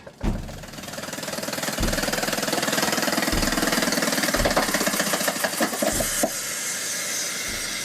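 River ferry's petrol engine running with a rapid, even chugging that builds over the first couple of seconds and then holds steady, with low thuds recurring about every second and a half.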